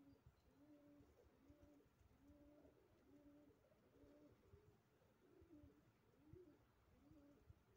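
Faint pigeon cooing: a run of short, low coos repeating about once or twice a second.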